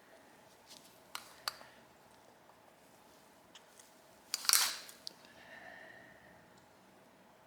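Small clicks and taps of tools and metal carburettor parts being handled on a workbench, with a short, louder noisy burst about four and a half seconds in.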